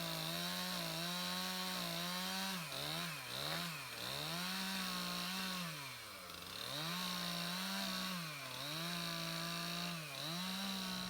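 Two-stroke chainsaw running at high revs, its pitch dropping sharply and climbing back again and again as the chain bogs down under load while cutting wood.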